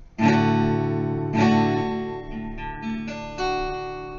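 Acoustic guitar strumming a D major chord: two firm strums about a second apart, then a few lighter strokes left to ring and fade.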